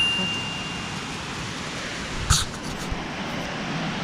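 Steady rushing of a nearby waterfall, with one short sharp rustle about two seconds in.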